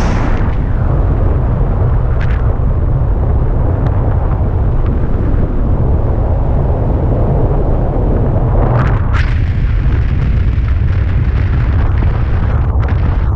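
Wind buffeting the camera's microphone in paragliding flight: a loud, steady low rumble of airflow noise, with brief hissing swells about two seconds in and again around nine seconds.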